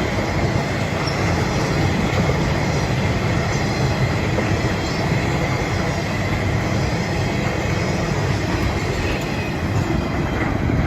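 Loaded rail train rolling past on the track: a steady, loud rumble of wheels and cars, with a faint thin high squeal from the wheels running through it.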